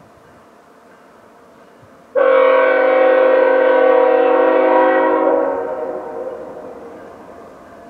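Nathan Airchime K5HL five-chime air horn on a CN ES44AC lead locomotive sounding one long, loud blast. It starts suddenly about two seconds in as a steady chord, holds for about three and a half seconds, then cuts and trails off.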